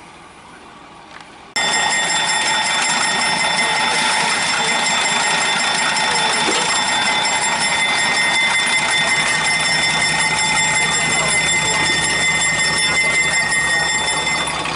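Locomotive air whistle blown in one long steady blast of several high held tones. It starts abruptly about a second and a half in, holds for about twelve seconds and eases off near the end.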